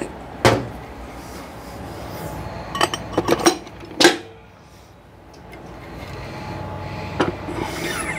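Sharp metallic clinks and knocks of Powerglide transmission parts being handled and fitted into the aluminium case as the front pump goes in. There is a quick cluster of clinks about three seconds in, and the loudest knock, just after, rings briefly.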